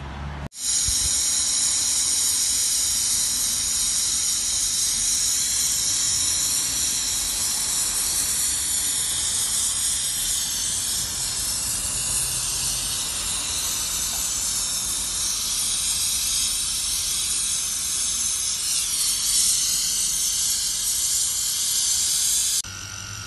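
Brazing torch flame hissing steadily at the copper refrigerant line of a split air conditioner, brazing shut the line's leak. The hiss starts suddenly about half a second in and cuts off shortly before the end.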